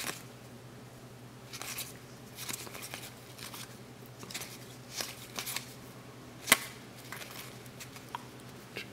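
Cardboard trading cards being handled and flipped from one stack to another, in short scattered swishes of card sliding against card, with one sharp click about six and a half seconds in, over a low steady hum.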